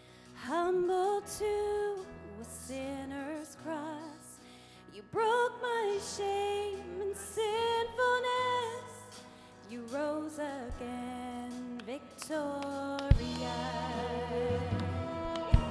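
Live worship band music with a singer holding a slow, wavering melody over sustained bass notes. About two-thirds of the way through the band fills out and grows louder, with two sharp hits.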